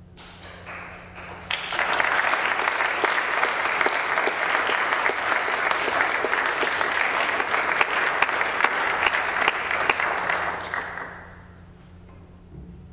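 Audience applauding a performer as he comes on stage, swelling within the first two seconds, holding steady and dying away about eleven seconds in.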